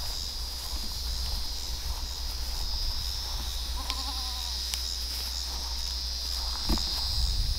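A goat gives one short, faint bleat about four seconds in, over a steady high-pitched drone of insects. There is a small knock near the end.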